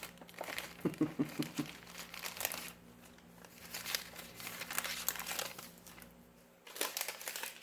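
Packaging crinkling and tearing as a taped-up gift box is opened by hand, in irregular bursts of crackles and rips with short pauses between.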